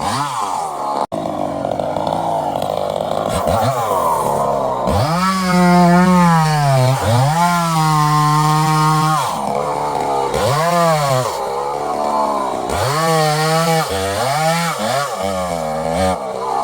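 Chainsaw engine revving up and down over and over, its pitch climbing and falling back several times, with a momentary cut-out about a second in.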